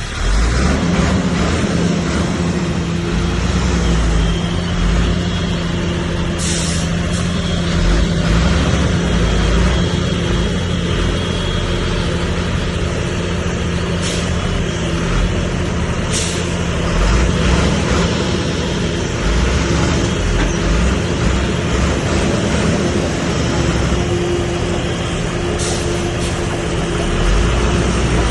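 Bulldozer's diesel engine running steadily under load, with a constant low drone and a few short sharp clanks.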